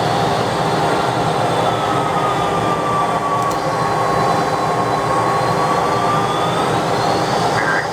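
DC-10 jet engines running at high power: a steady loud roar with a whine that sags slightly in pitch through the middle and climbs back near the end.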